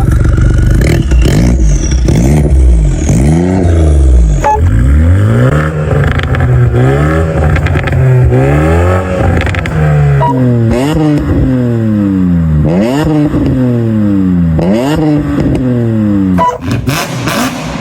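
BMW car engine revving hard over and over, its pitch climbing and falling again in repeated sweeps that come quicker in the second half.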